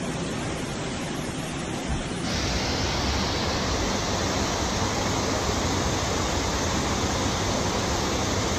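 Steady rushing noise of rain and floodwater in a flooded city street, becoming louder and hissier about two seconds in.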